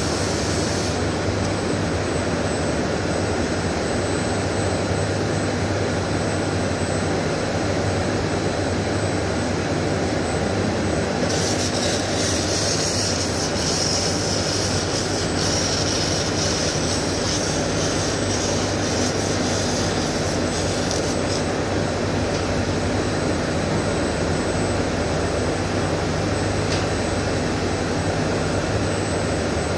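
Electric arc welding: a steady low hum of machinery, with the crackling hiss of the welding arc added for about ten seconds in the middle.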